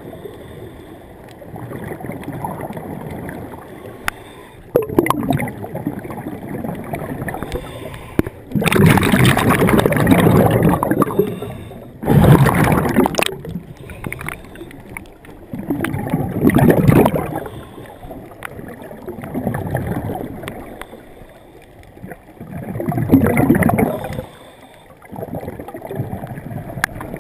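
Underwater sound picked up by a camera in a waterproof housing: a muffled wash of water with loud surges of bubbling and gurgling every few seconds, the longest about a third of the way in.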